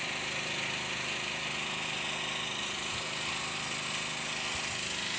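Steady hiss of wind and sea with the even drone of a small engine running at constant speed underneath.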